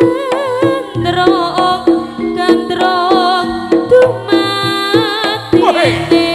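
Javanese jaranan music: gamelan-style ensemble with steady sustained notes, regular drum strokes and a wavering melodic lead line.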